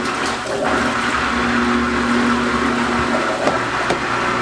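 Portable twin-tub washing machine draining its wash tub after the rinse cycle: a steady rush of water pouring out, with a low hum underneath.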